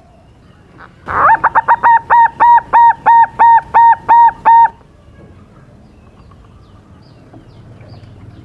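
Zebra dove (perkutut) singing: a loud run of about a dozen cooing notes starting about a second in, the first few quick and close together, then evenly spaced at about three a second for some three seconds.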